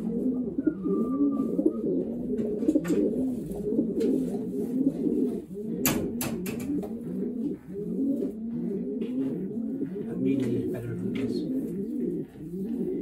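A loft full of racing pigeons cooing continuously, many low coos overlapping. A few sharp clicks sound about six seconds in.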